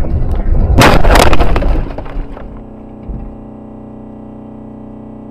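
Vehicle collision: a loud crash with crunching and breaking about a second in, heard over road rumble. It dies away within about a second and a half, leaving a steady hum.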